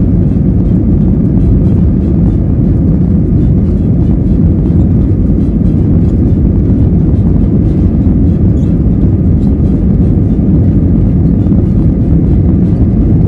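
Jet airliner cabin noise: a steady, loud, low rumble of engines and airflow with no change in level.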